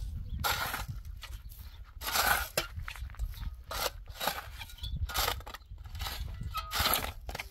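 Irregular crunching or scraping sounds, about five short bursts a second or so apart, over a steady low rumble.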